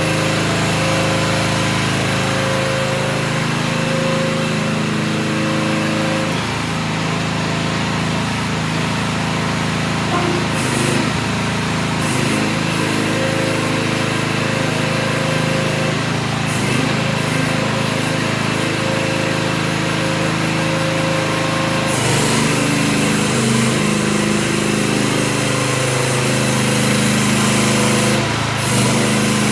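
2022 Visec VC13 mini excavator's 13.5 hp Briggs & Stratton gasoline engine running steadily, its note shifting several times as the hydraulics take load while the machine tracks and works its arm.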